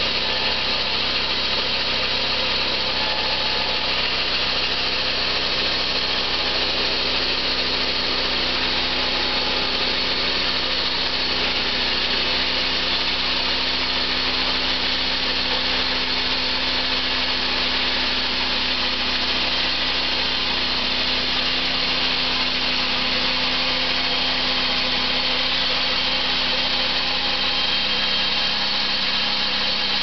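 Jobber 200 portable sawmill running: a steady machine hum with a strong high hiss, unchanging in level.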